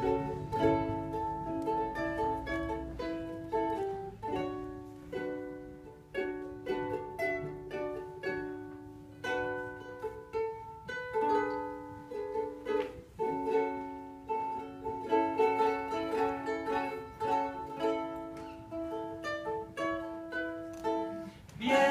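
Acoustic plucked-string instrument played solo, picking out a melody over ringing chords as an instrumental introduction before the vocals come in.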